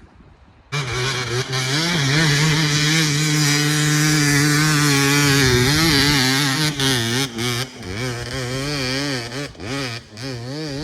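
Dirt bike engine running close by. It cuts in abruptly and holds a steady pitch, then is revved up and down in quick blips through the second half.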